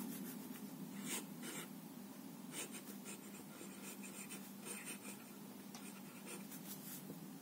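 Stainless-steel F nib of a Staedtler Initium Metallum fountain pen scratching faintly across Rhodia paper in short, irregular strokes as a word is written in cursive.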